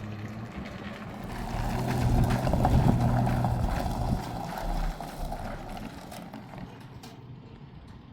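A motor vehicle's engine running, swelling louder over the first two to three seconds and then slowly fading.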